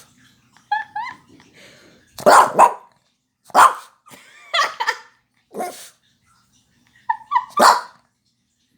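A pet dog barking in a series of about seven sharp barks in irregular clusters, with short high-pitched rising whines near the start and again just before the last bark. It is alert barking set off by a knock at the door.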